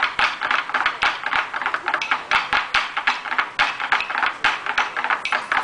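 Taiko drummers clicking their wooden bachi sticks in a fast, uneven rhythm of sharp wooden clacks, with no deep drum tones.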